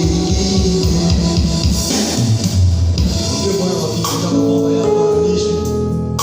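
Worship music playing: a band with a steady beat in the first couple of seconds, then held bass notes.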